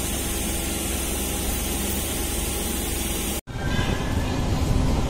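Electric passenger train rolling slowly along the platform, a steady rumble and hiss of wheels on rail. The sound cuts out abruptly about three and a half seconds in and comes back as a louder, rougher rumble of the moving train.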